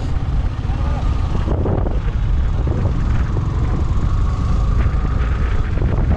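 Yamaha R15 V3 motorcycle running while being ridden, under a heavy, steady wind rumble on the microphone.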